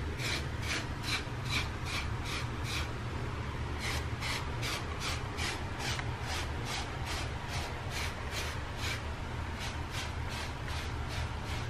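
A hairbrush is stroked repeatedly through short hair, at about three brush strokes a second. The strokes pause briefly about three seconds in, then carry on at the same pace.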